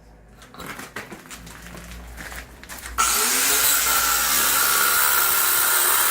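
A few light clicks and rubbing sounds, then about halfway through a power tool starts abruptly and runs steadily, loud, cutting into a buried sewer pipe to open it up.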